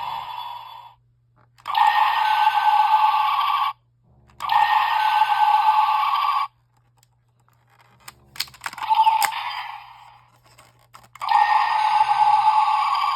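DX GUTS Sparklence transformation toy playing its electronic sound effects through its small built-in speaker: four bursts of buzzy, shimmering sound about two seconds each, separated by short gaps with faint clicks from the toy being handled.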